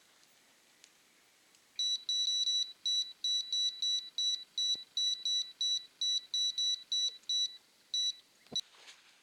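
Electronic carp bite alarm beeping in a rapid run of single high beeps, about three or four a second, starting about two seconds in: line being pulled through the alarm as a fish takes the bait. A short knock near the end.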